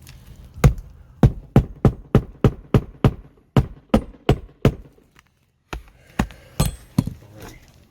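Hand hammer striking, driving nails into roof shingles: a fast steady run of sharp blows about three a second, a brief break, then a few more blows.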